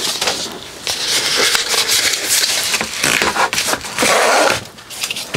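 Packaging rustling and crinkling with scraping and small crackles as the Silwy anti-slip mat is unwrapped and handled.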